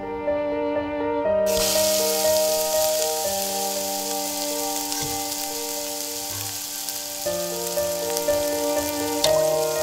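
Frying sizzle, a steady hiss like food in a hot pan, that starts about a second and a half in, over background music with sustained chords.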